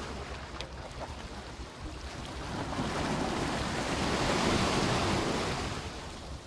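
Water washing and splashing against shoreline rocks, swelling about three seconds in and fading again near the end, with wind buffeting the microphone.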